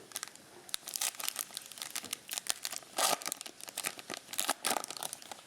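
Crinkling and tearing of a foil trading-card pack wrapper being opened and handled, in a dense run of irregular crackles that is loudest about three seconds in.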